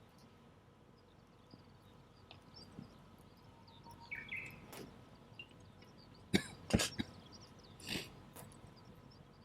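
A person clears their throat in three short coughs, about six to eight seconds in, over a campfire crackling faintly with small pops. A bird chirps briefly a little before halfway.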